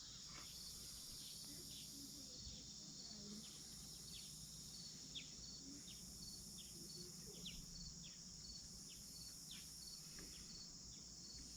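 Near silence with faint insects: a steady high insect drone and a short cricket-like chirp repeating evenly, a little faster than once a second.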